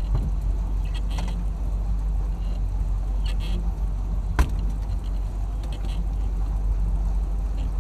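Steady low hum of a small boat's engine idling. There are faint squawking calls now and then and one sharp knock a little over four seconds in, as fish are unhooked on the deck.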